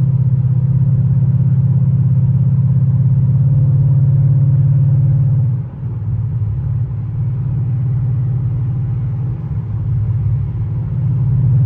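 Ford Mustang GT's 5.0 V8, breathing through long-tube headers, an H-pipe and a Magnaflow cat-back, droning steadily in the cabin at highway speed. The note drops briefly about six seconds in, then picks back up and swells near the end.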